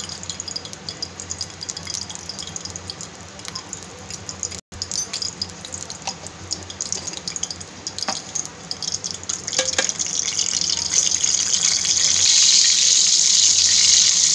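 Hot oil in a steel kadhai sizzling and crackling with scattered small pops as the tadka (tempering) heats with a pinch of hing in it. About ten seconds in it builds to a louder, steady sizzle.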